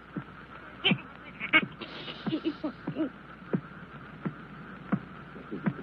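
Cartoon sound effects of something approaching: a run of short sounds that each drop in pitch, irregularly spaced about one or two a second, over a steady high tone.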